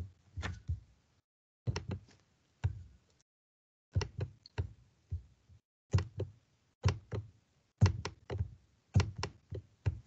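Computer mouse clicking: about twenty short, sharp clicks in irregular clusters of two or three, with brief silent gaps between them.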